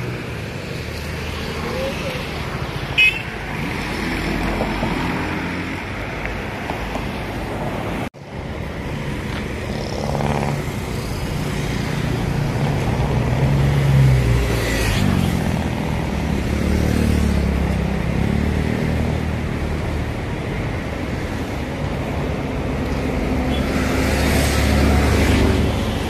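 Road traffic: vehicle engines passing with a steady hum. The passes swell loudest about fourteen seconds in and again near the end. There is a short sharp sound about three seconds in, and the sound drops out for a moment about eight seconds in.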